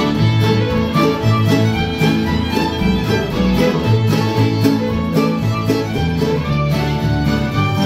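Old-time string band playing a fiddle tune: several fiddles bowing the melody together over acoustic guitars keeping a steady strummed rhythm with alternating bass notes, with mandolins.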